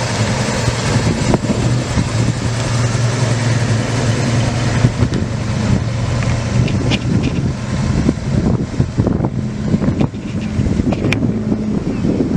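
Classic C1 Chevrolet Corvette's V8 engine running at low speed with a steady, low note as the car rolls past and drives away.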